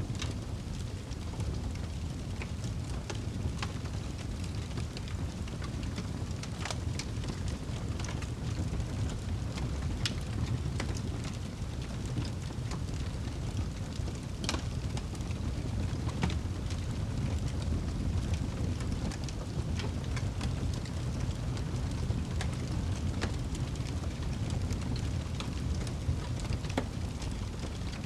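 Wood fire crackling in a fireplace: scattered sharp pops and snaps, a few louder ones, over a steady low rumble.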